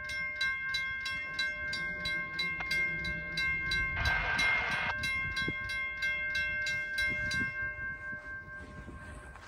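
Railroad crossing bell ringing fast and evenly, about four strikes a second, over a train approaching with a low rumble; the strikes die away near the end. A brief rush of noise, the loudest moment, comes about four seconds in.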